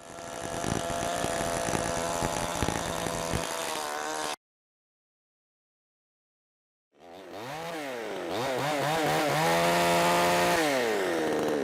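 Petrol chainsaw engine running steadily for about four seconds, then cut off abruptly to dead silence. About seven seconds in it starts again and is revved, its pitch rising and falling several times.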